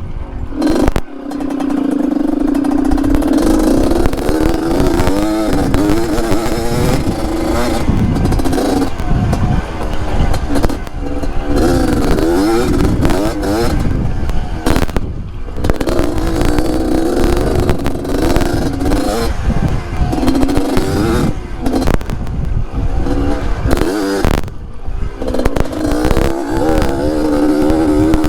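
Yamaha DT trail bike with a two-stroke RX-King engine, revving up and down over and over as it is ridden, with knocks and clatter from the bike over rocky ground.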